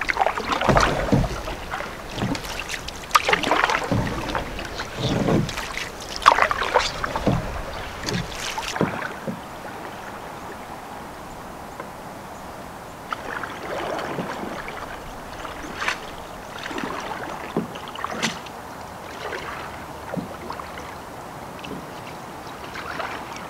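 A wooden canoe paddle dipping and pulling through river water close by, with a splash-and-swirl about once a second for the first nine seconds. After that the strokes stop being heard up close, leaving quieter, scattered faint water sounds and light knocks.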